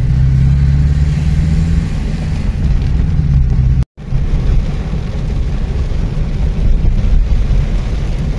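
Steady low engine and road rumble heard from inside a car driving in the rain. The sound cuts out for a split second about four seconds in.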